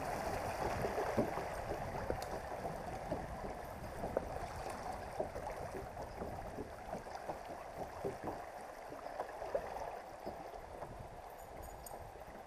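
Shallow river riffle rushing and babbling around a drifting kayak, dotted with many small ticks and taps. The rush fades gradually as the water calms.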